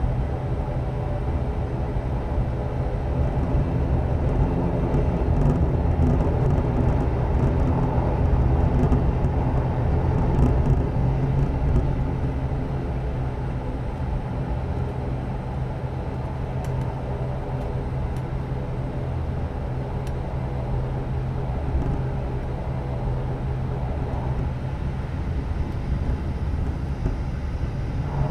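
Propeller and engine drone of an ATR turboprop airliner heard inside the passenger cabin: a steady hum made of several tones over a low rumble, swelling slightly about a third of the way through.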